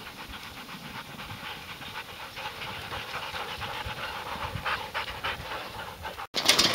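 A team of sled dogs running and panting as they pull a dog sled through deep powder snow, with a busy patter of quick, short sounds. Near the end the sound cuts out for a moment, and louder, sharper sounds follow.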